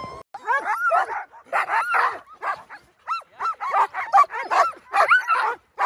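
Sled dogs in harness barking and yipping, about three short calls a second, each rising and falling in pitch.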